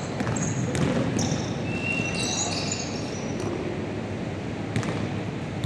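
Basketball sneakers squeaking in short high chirps on a hardwood gym floor, with a few sharp thuds of the ball and feet hitting the floor.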